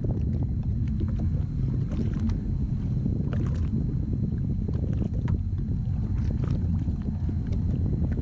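Steady low rumble aboard a jet ski at sea, with scattered faint ticks and splashes.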